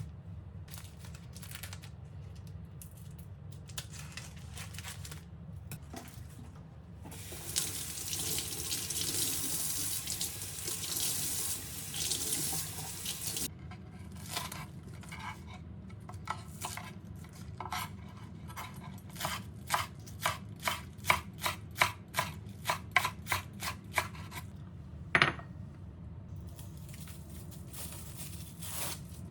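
Kitchen tap running into a sink for about six seconds, then a long, even run of sharp knocks about two a second and one louder knock near the end.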